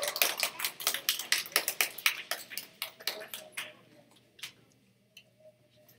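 Audience applause made of distinct individual claps, thinning out and stopping about four seconds in, with one or two last stray claps after.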